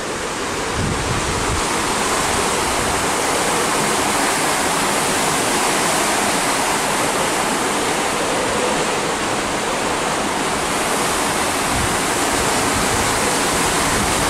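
Steady rush of churning seawater in a cruise ship's wake, with wind buffeting the microphone at moments.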